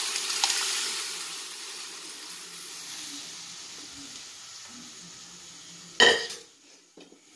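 Cooked dal poured into hot onion-tomato masala in a pan, sizzling loudly at first and fading steadily over several seconds. A sudden loud knock about six seconds in.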